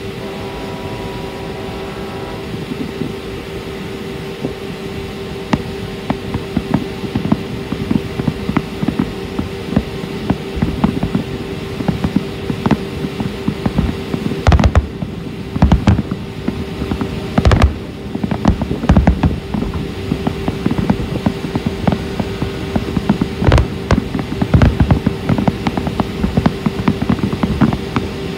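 Fireworks bursting: an irregular run of booms and crackles that thickens about five seconds in, with the heaviest bangs around the middle and again near the end. Underneath, a steady engine hum from the boat.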